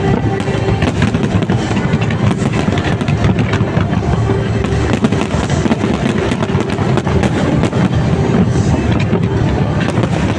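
Aerial fireworks bursting and crackling in a rapid, continuous barrage, with music playing alongside.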